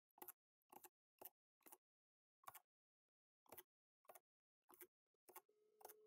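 Faint short clicks, about two a second at uneven spacing, as small screws are driven into a laptop's plastic bottom cover with an electric screwdriver. A faint steady hum starts near the end.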